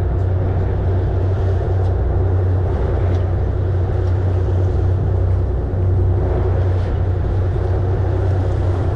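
Charter fishing boat's engine running, a steady low drone under an even hiss of wind and water.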